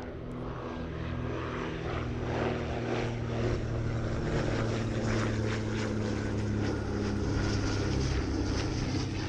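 A de Havilland Dragon Rapide's twin six-cylinder inline piston engines and propellers droning steadily in flight. The sound grows louder over the first few seconds, then holds.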